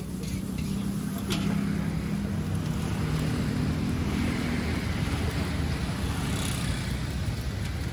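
Road traffic: a motor vehicle engine running close by, a steady low drone over a rushing hiss. It grows louder about a second in.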